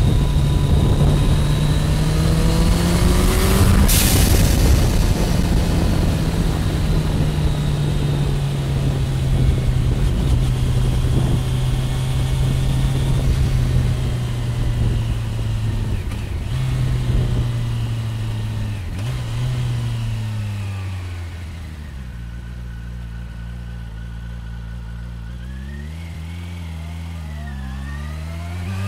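Turbocharged Suzuki Hayabusa inline-four pulling hard, its note rising, then the blow-off valve venting with a sharp hiss at about four seconds as the throttle shuts. The engine then runs on at a steady, slowly falling note under wind rush, dropping lower and quieter after about twenty seconds, with a few rises and falls near the end.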